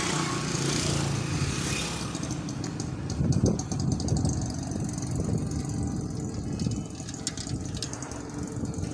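Motor vehicle engine running steadily while driving along a road, with a louder swell about three and a half seconds in.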